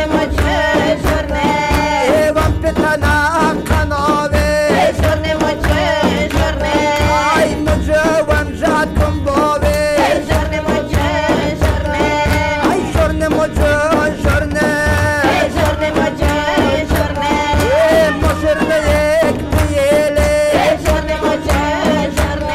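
Tajik folk dance music: frame drums keep a steady beat under a bending, ornamented melody.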